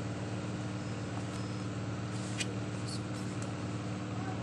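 Steady low hum over an even hiss, with a few faint clicks about two to three seconds in.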